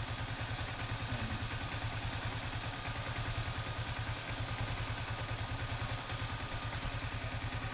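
Yamaha Sniper 155R's single-cylinder engine idling steadily at operating temperature, with its electric radiator fan running, while air is bled from the freshly refilled cooling system.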